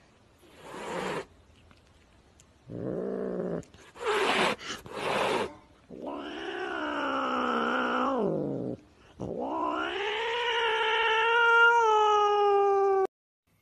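Domestic cat yowling in long, drawn-out caterwauls, the last held for about three seconds and cut off suddenly. Shorter calls and a few short hissing sounds come before them.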